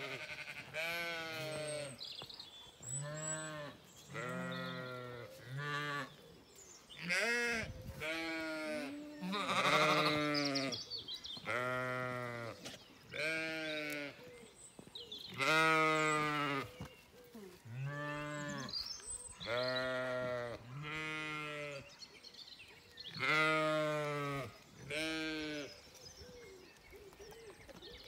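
A flock of Zwartbles sheep bleating over and over, long wavering calls about one a second, some of them overlapping. The calling dies away shortly before the end.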